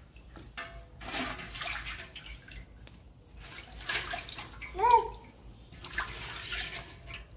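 Water sloshing and splashing as fish pieces are washed by hand in a steel pot of water. About five seconds in comes a short rising-and-falling voice sound, the loudest moment.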